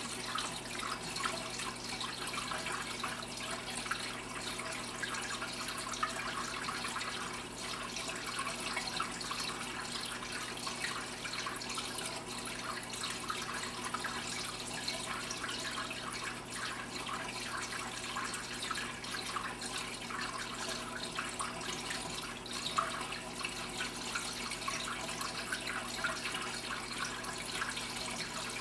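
Steady trickling and splashing of circulating water in a home-built overflow aquarium, with a low steady hum underneath.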